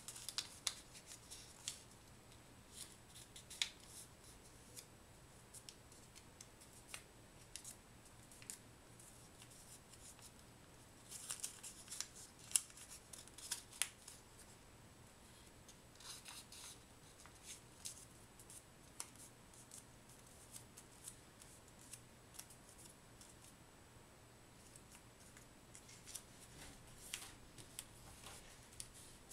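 Origami paper being folded by hand: faint crisp rustles and small clicks of the paper as flaps are opened and creases pressed, coming in scattered clusters with a busier flurry a little before the middle.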